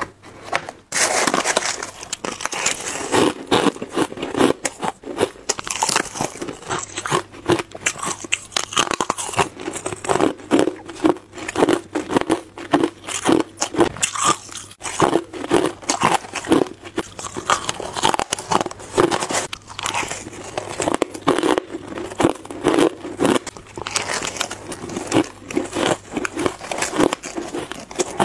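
Freezer frost being bitten and chewed: continuous, irregular crunching of packed ice crystals, starting about a second in.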